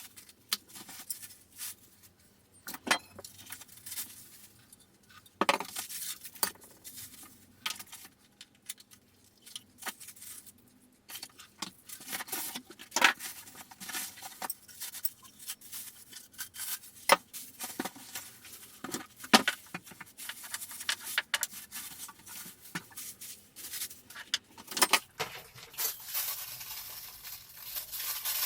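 Irregular clicks, knocks, clinks and scrapes of a drill press and its packaging being unboxed and handled, metal parts set down and moved about. Near the end a steadier rubbing, rustling noise sets in.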